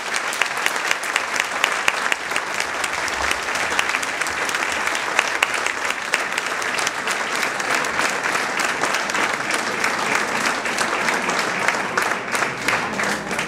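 Audience applauding: dense, steady clapping that thins a little near the end.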